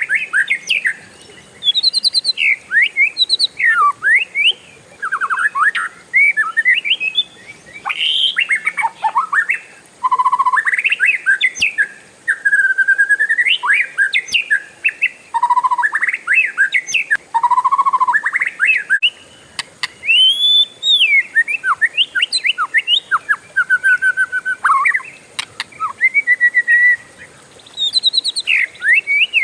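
Oriental magpie-robin (kacer) singing a long, varied song of rapid whistles, trills and sliding notes, phrase after phrase with short pauses between.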